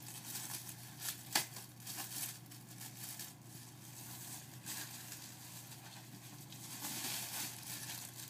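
Plastic packaging crinkling and rustling as a new laptop is unwrapped, with a sharp click about a second and a half in.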